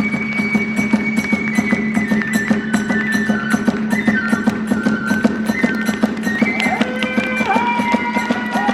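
Kagura hayashi music: a transverse flute playing held notes that step up and down, over a fast, even beat of drum and hand-cymbal strokes.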